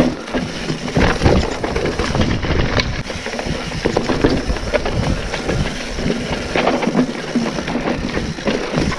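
Mountain bike riding fast downhill over a rocky, leaf-covered dirt trail: steady tyre noise on dirt and leaves, broken by frequent knocks and rattles as the bike hits rocks and roots.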